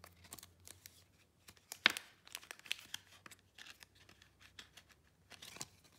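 Clear plastic card sleeve and Ultra Pro holder crinkling and crackling as a trading card is slid into them. The sharpest crackle comes about two seconds in, with lighter rustles scattered before and after.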